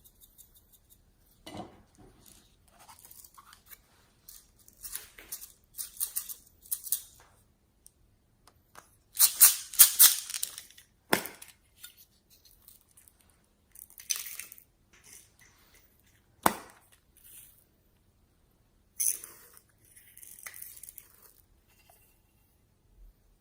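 Slime being squeezed and worked by hand: irregular bursts of crackling, squishing and sharp popping, with a few single crisp clicks. The densest crackling comes about ten seconds in.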